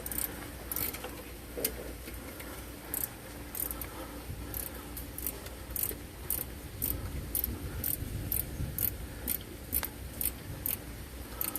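Ratchet wrench clicking in short strokes, about two clicks a second, as an alternator mounting bolt is tightened.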